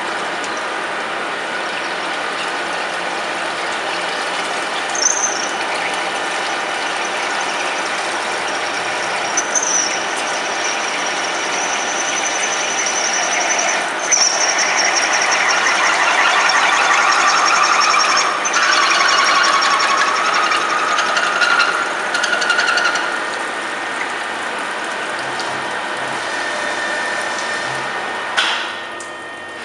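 Deckel FP4 NC CNC milling machine running, a steady mechanical noise with a thin high squeal that sets in about ten seconds in and fades out a few seconds after the middle, the machine louder for a stretch in the middle; a single sharp knock near the end.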